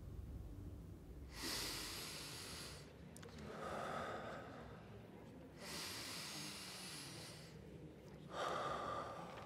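A man breathing slowly and deeply through two long breath cycles, each a breath in followed by a breath out.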